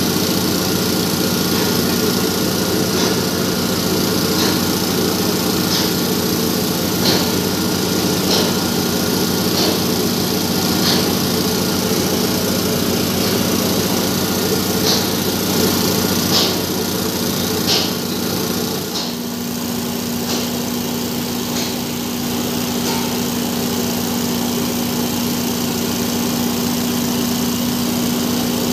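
A small engine running steadily throughout. Faint light ticks come roughly every second or so in the first part. About two-thirds of the way through, its note shifts up a little and then holds steady.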